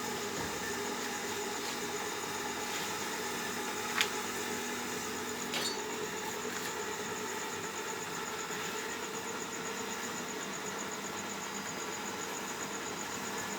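Homemade automatic egg incubator running with a steady electric hum, and two short sharp clicks about four and five and a half seconds in.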